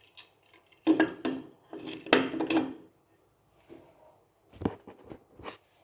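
Rice cooker's metal heating base clattering and scraping on a hard block as it is handled and set in place: two runs of knocks and rattles in the first three seconds, then a few single clunks near the end.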